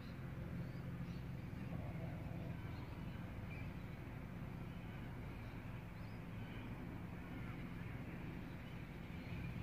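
Quiet outdoor background: a steady low rumble, with faint high bird chirps now and then. The cats make no clear call.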